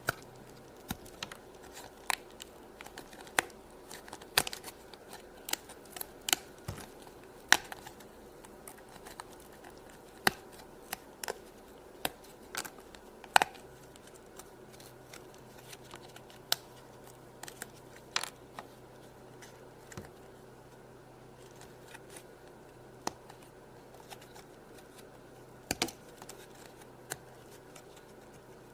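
Die-cut cardboard pieces being popped out of a punch-out card: sharp, irregular snaps and clicks, roughly one every half second to a second.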